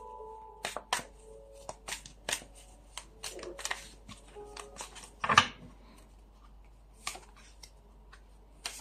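A deck of tarot cards being shuffled by hand: a quick run of card snaps and slaps, loudest about five seconds in, then thinning to a few single card sounds.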